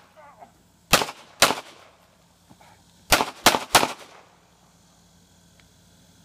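Five shots from a CZ P-10 C 9mm pistol: two about half a second apart, then, about two seconds later, three in quick succession.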